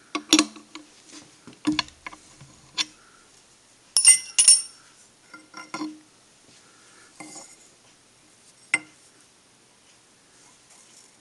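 Metal clinks and knocks as a cast-aluminium cylinder head plate is handled and taken out of a milling-machine vise: about eight separate strikes. The loudest two are ringing clinks close together about four seconds in.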